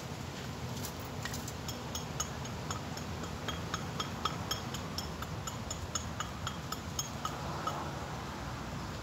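An irregular run of short, light clinks, a few a second, starting about a second in and stopping near the end, over a steady low outdoor rumble.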